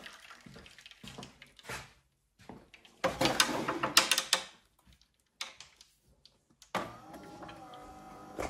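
Scattered clicks, then a second or so of clattering and scraping about three seconds in, as a thin metal tool is handled at a coffee machine's plastic drip tray.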